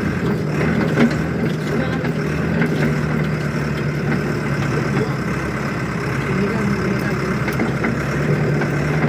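A heavy vehicle's engine running steadily at an even pitch.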